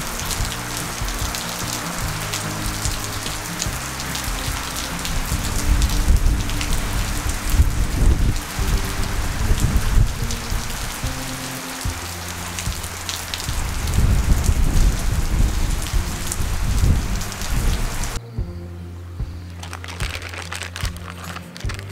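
Steady rain falling, with a couple of deep rumbles swelling in and out. The rain cuts off suddenly near the end.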